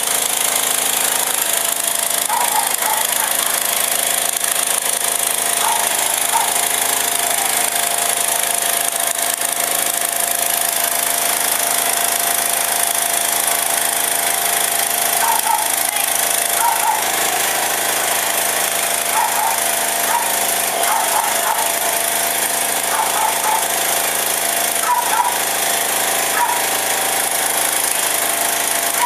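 Fire truck's engine and pump running steadily, with a loud even hiss and a steady whine, and short faint chirps now and then.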